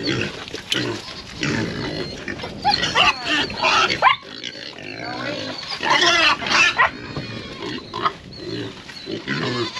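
Pigs grunting and squealing, with louder squeals about three seconds and six seconds in.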